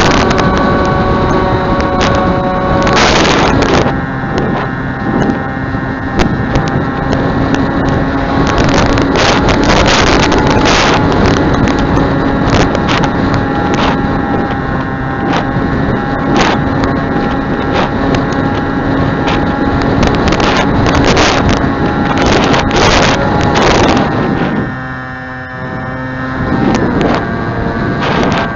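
Small RC pusher airplane's motor and propeller running with a steady whine that changes pitch with the throttle, dropping a few seconds in and easing off briefly near the end. Gusty wind buffets the microphone hard throughout.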